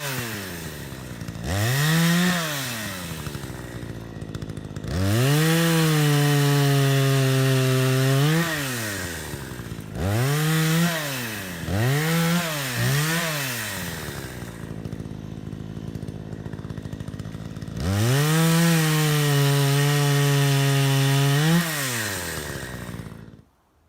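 Two-stroke chainsaw revving up to full throttle in bursts, some held for several seconds and some quick blips, dropping back to a lower running speed between them. It stops abruptly shortly before the end.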